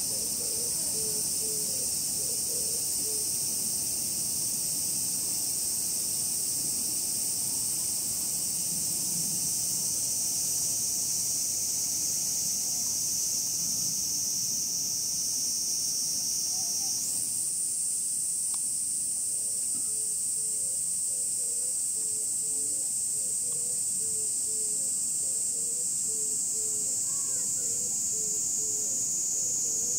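A chorus of cicadas in summer trees, a steady high-pitched buzz that shifts higher about halfway through.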